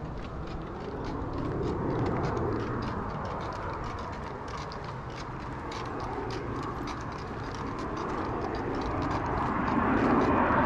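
Footsteps on a path at a steady walking pace, over a low rumble of vehicle noise that swells about two seconds in and again near the end.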